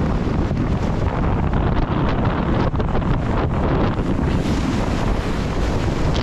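Strong wind buffeting an action camera's microphone out on the open sea, a steady low rumble over the rush and hiss of choppy water and spray.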